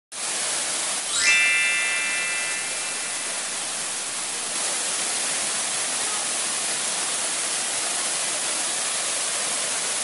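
Wachirathan Falls rushing steadily, a dense hiss of falling water and spray. About a second in, a short rising shimmer leads into a bright ringing chime that fades away over about two seconds.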